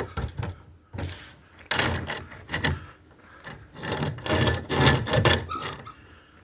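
SOG pocket chainsaw, a hand-pulled chain blade, rasping back and forth through wood with strokes about half a second apart. There is a short pause about halfway through before another run of strokes.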